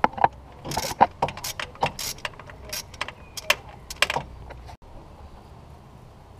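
Hand socket ratchet clicking in short irregular runs as it turns a bolt on the diesel engine's fuel system; the clicking stops about four and a half seconds in.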